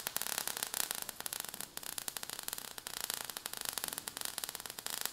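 Crackling, fizzing sound effect of burning sparks: a dense, steady run of rapid crackles.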